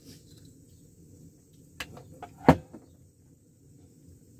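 Tabletop handling sounds: a few light clicks, then one sharp knock with a brief ring about two and a half seconds in, over a steady low hum.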